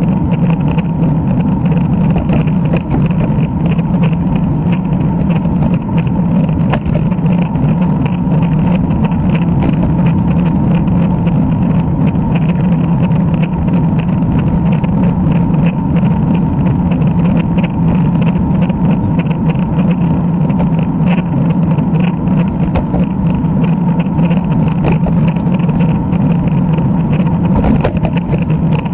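Steady rumble of riding noise, wind and road, on a camera mounted on a road bike, holding level without a break.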